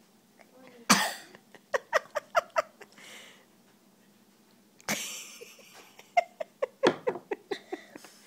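A sick child coughing in two fits. Each begins with a hard cough and runs on into a quick string of shorter coughs: the first about a second in, the second about five seconds in.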